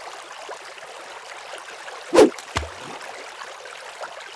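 Channel logo intro sound effect: a steady hiss with a sudden loud hit a little over two seconds in and a smaller, deeper thud just after.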